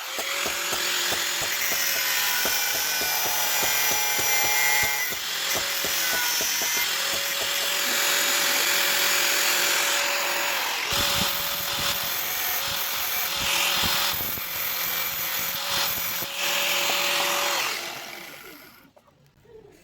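Electric power tool, most likely a grinder, working a steel blade: a steady hissing whine with a sustained tone and shifting higher pitches as the load changes. It runs down and fades out near the end.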